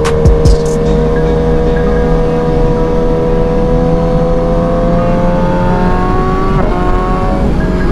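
BMW S1000RR inline-four engine pulling under steady acceleration, its pitch climbing slowly, then dropping sharply with an upshift about six and a half seconds in and climbing again. Wind rush on the microphone lies underneath, with a couple of short knocks near the start.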